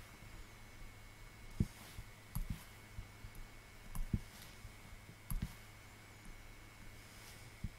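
Pen stylus tapping and clicking on a writing tablet during handwriting: a handful of short, soft taps, several in quick pairs, over a steady faint hum.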